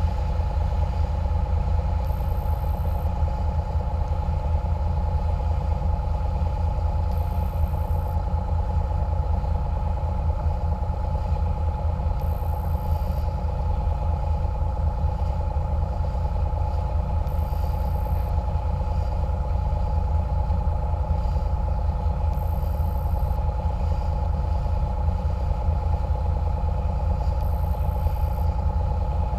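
Engines of a catamaran water bus running steadily under way, a constant low drone with a steady hum above it.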